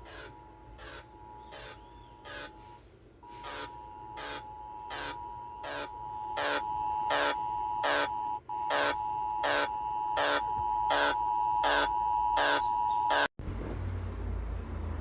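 Emergency Alert System-style attention signal: a steady two-tone alarm chord with a pulsing beep about every three-quarters of a second, growing louder. It cuts off abruptly about 13 seconds in, and a low rumble follows.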